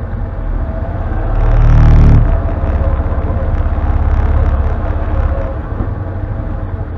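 Can-Am Defender HD10 side-by-side's Rotax V-twin engine running at low trail speed. It swells on the throttle about one and a half seconds in, then settles back to a steady low-rev pulsing.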